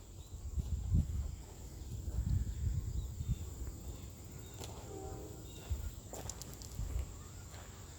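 Crickets chirring steadily at a high pitch, under an irregular low rumble and thuds of handling and footsteps on the microphone.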